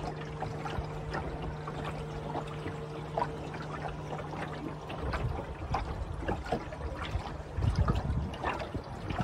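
Water lapping and trickling against the wooden hull of an Ilur sailing dinghy under way, in many small irregular splashes. A faint steady hum stops about five seconds in, and a low rumble grows louder after that.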